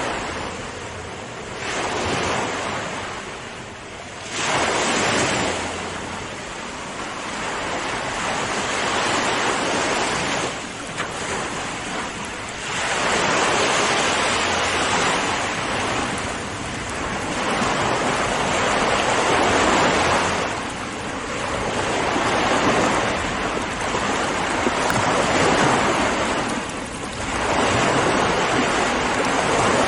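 Ocean waves breaking and washing on a shore, the surf swelling and easing every few seconds, with some wind.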